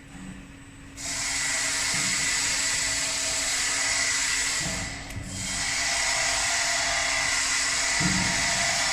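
4-axis CNC wood lathe cutting a wooden sofa leg: a high, whining cutting noise starts suddenly about a second in, dips briefly around the middle, then runs on steadily.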